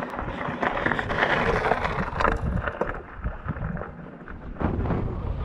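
Mountain bike ridden over rough, rocky ground: an irregular rattle and crackle of tyres on stones, with wind noise on the microphone.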